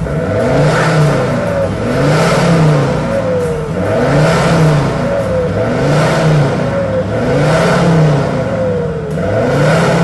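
Ford Ranger's engine revved repeatedly through an HKS Legamax aftermarket exhaust, about six blips, each rising and falling back, one every one and a half to two seconds.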